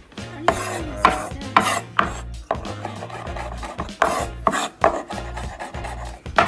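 Hands and a cleaver-style knife gathering and chopping rosemary leaves on a wooden cutting board: irregular knocks and scrapes of blade and fingers on the board.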